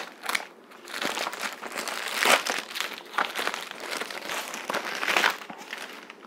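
Plastic courier mailer bag being crinkled and pulled open by hand: an irregular crackling rustle, with louder crackles about two seconds in and again near five seconds.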